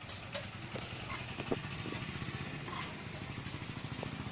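Insects droning steadily at a high pitch over a motorcycle engine idling low in an even pulse, with a couple of short chirps.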